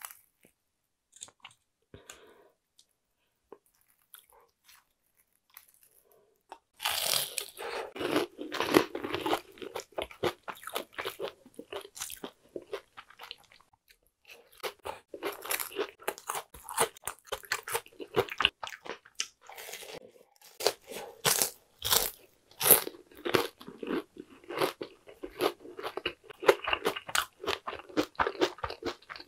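Close-miked crunching and chewing of a batter-fried jumbo shrimp: crisp crackling bites and chews begin about seven seconds in after a quiet stretch, pause briefly midway, then carry on.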